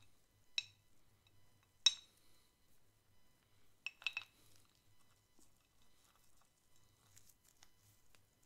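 A few sharp, ringing clinks of a small ceramic dish being handled: one light clink, a louder one about two seconds in, and a quick cluster of two or three near four seconds.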